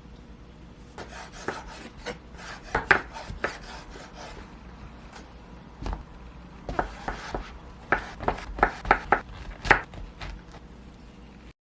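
Sharp knocks with scraping between them on a hard surface, scattered at first and then coming about three a second near the end.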